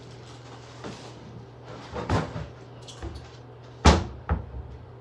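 A few household knocks and bangs: a cluster about two seconds in, then a sharp bang about four seconds in followed by a smaller knock, over a steady low hum.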